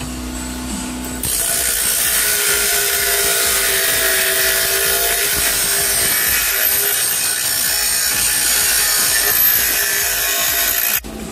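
Bench grinder wheel grinding a steel disc held against it: a loud, steady rasp with ringing tones that starts about a second in and cuts off abruptly near the end.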